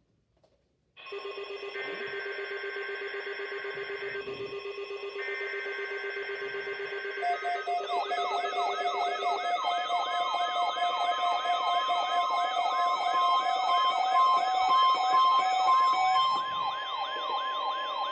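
Weather radio receivers sounding their alert alarms together, set off by the weekly test broadcast. Several steady electronic tones start about a second in. From about seven seconds in, a rapid siren-like warble and a steady alarm tone join them and the whole grows louder.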